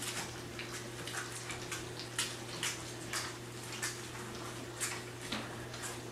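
A litter of three-week-old Labrador retriever puppies lapping and slurping gruel from shallow pans: many quick, irregular wet smacks and clicks.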